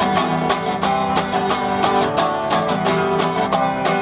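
Band playing an instrumental passage of a song: guitar strummed in a steady rhythm over sustained notes, with no vocals.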